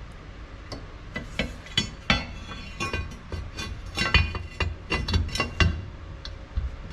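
Irregular series of small metallic clinks and light knocks: mount hardware and tools being handled while a nut is tried on an engine mount bolt. The clinks come thickest in the middle, then die away near the end.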